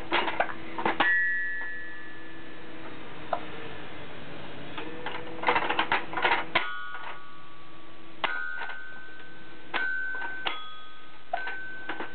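Small child playing a piano, striking keys in bunched handfuls and then single notes that ring on and fade. A couple of clusters of notes come near the start and again about halfway, followed by separate notes every second or so.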